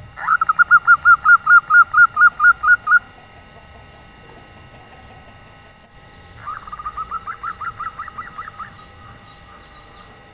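Female zebra dove giving its rapid rattling 'nyelir' call: a loud run of about fourteen quick pulsed notes, about five a second, over some three seconds, then a softer, faster run of similar notes about six seconds in. This is the female call used to coax male zebra doves into singing.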